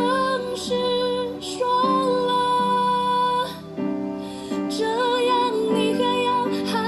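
A gentle song: a woman's voice sings a slow, wavering melody over soft sustained accompaniment.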